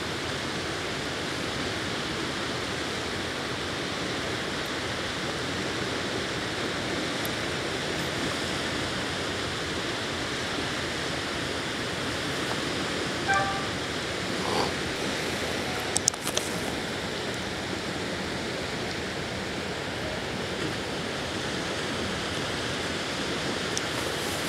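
Steady rushing of river water and wind, an even noise with no rhythm. A brief high note sounds about thirteen seconds in, and a few sharp clicks about sixteen seconds in.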